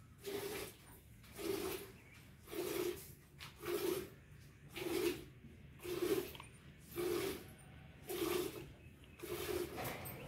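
Cow being milked by hand, milk squirting from the teats into a pail: a regular hiss of streams, about one squirt a second.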